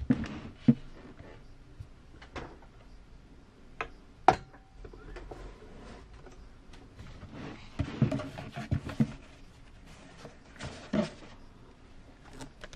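Handling noise from a rigid headphone presentation box and its contents: scattered sharp knocks and taps, the loudest about four seconds in, and a run of bumps and rustles around eight to nine seconds.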